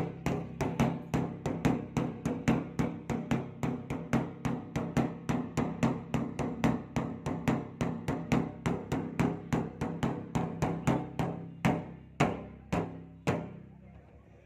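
A large leather-headed drum beaten in an even beat of about four strokes a second, each stroke ringing low; the strokes slow and stop about a second before the end.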